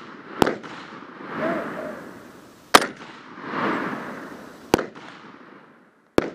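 M1 Garand rifles firing .30-06 rounds, four sharp shots about two seconds apart, each followed by a long rolling echo.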